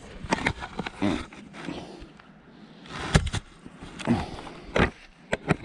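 Irregular footsteps and clothing rustle of a person walking on grass, with a sharper knock about three seconds in.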